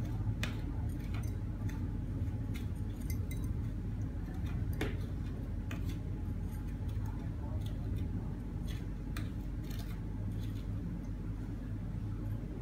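Scattered light clicks and clinks of a scoop against a glass beaker as sodium acetate crystals are spooned into it from a plastic bag, over a steady low hum.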